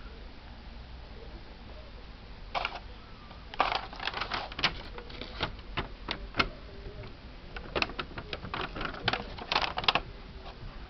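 Homemade passively Q-switched Nd:YAG laser firing: sharp snapping clicks at irregular intervals, some in quick runs, as the pulses make sparks in the air at the beam's focus.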